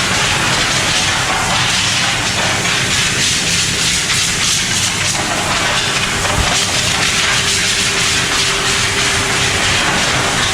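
Loud, steady rush of air in an auto paint booth, a continuous hiss over a low hum with no breaks.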